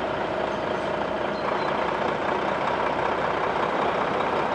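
Heavy diesel engine running steadily, an even, dense noise without breaks.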